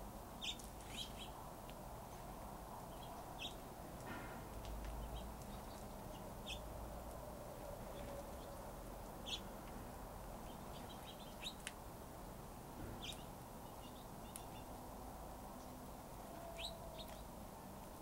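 Small finches chirping at the feeders in short, scattered calls, one every second or two, over a steady low background hum.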